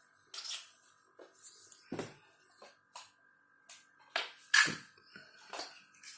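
Plastic toy cars and figures clicking and knocking as they are handled and set down, a string of short separate knocks with the loudest about one and a half seconds and about four and a half seconds in.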